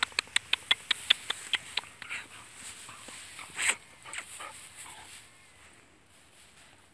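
A quick run of about ten sharp clicks, roughly six a second, in the first two seconds, then one short louder rustling burst about halfway through.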